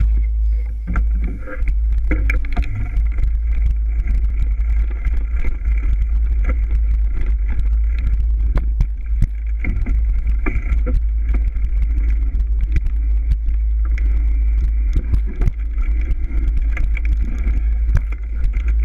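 Mountain bike ride on a rough dirt trail heard through an action camera: heavy wind buffeting on the microphone, with frequent rattles and knocks from the bike over roots and rocks.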